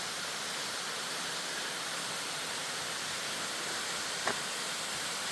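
Waterfall rushing in a steady, even hiss, with one brief click about four seconds in.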